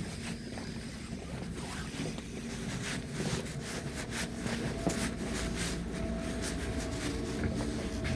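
Passenger train running, heard from inside the carriage: a steady low rumble with scattered clicks and knocks, and a steady humming tone that comes in about halfway through.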